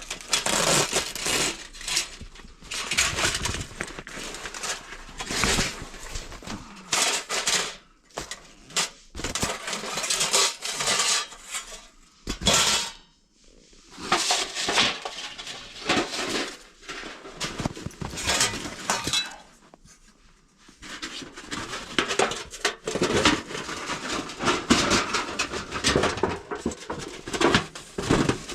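Camping cookware and gear being handled: irregular clinking of metal pots and utensils mixed with rustling, with short pauses between bursts of activity.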